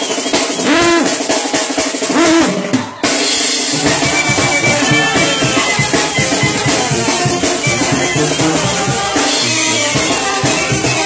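Live Mexican banda music: brass band with drums playing dance music. About three seconds in the sound cuts off abruptly and the band comes back in a fuller, bass-heavy section with steady drums.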